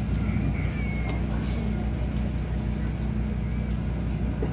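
Steady low drone, with a few faint short chirps above it.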